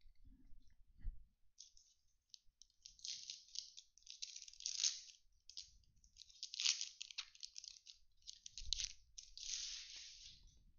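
Foil wrapper of a 2012 Topps Series 1 baseball card pack crinkling and tearing as it is opened by hand, in several rustling bursts.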